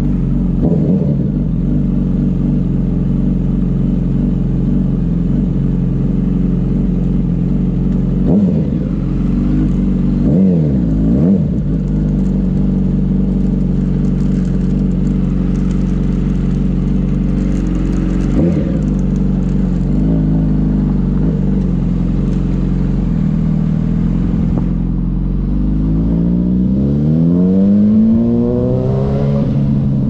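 2005 Yamaha YZF-R1's inline-four engine through straight pipes, running at low revs with a few short throttle blips, then accelerating near the end with its pitch climbing steadily.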